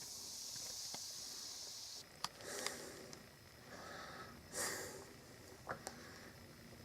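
Faint sounds of a person with a glass of iced ginger ale and vodka: a hiss for about two seconds, a few light clicks, and a short breathy sniff or sip near the middle.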